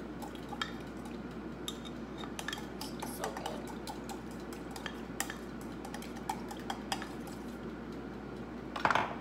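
A utensil stirring a liquid marinade in a Pyrex glass measuring cup, with irregular light clinks against the glass. There is a louder knock near the end.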